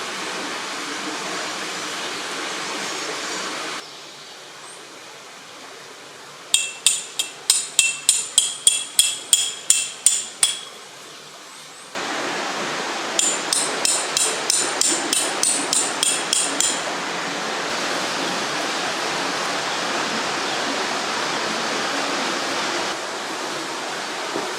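Metal being struck with a hammer: two quick runs of sharp, ringing metallic strikes, about three or four a second, the first loud and clear, the second fainter. Behind them is the steady rush of a river.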